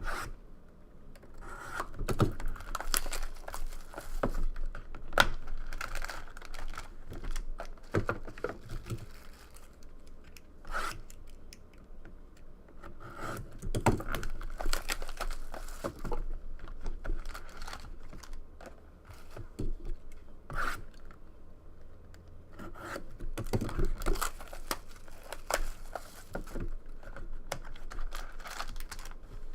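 Plastic shrink wrap and packaging being torn and crinkled as a sealed trading-card box is opened, with scattered sharp rustles, snaps and scrapes coming in clusters.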